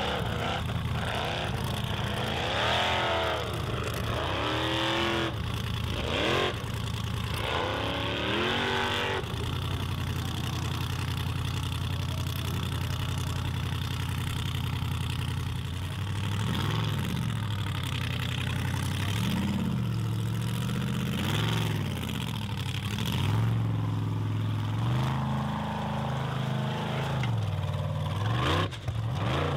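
Formula Offroad buggy V8 engines revving hard. The pitch sweeps up and down again and again as the throttle is blipped and held. The sound changes character partway through as a different car takes its run.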